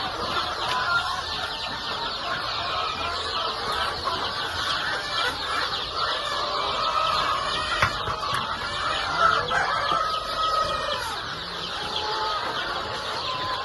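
A flock of laying hens clucking and chattering without a break, with single louder calls rising out of the din now and then.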